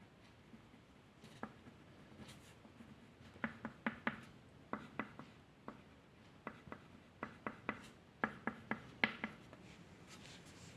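A drawing tool working on paper: a run of short, sharp taps and strokes, about two a second, bunched in the middle of the stretch.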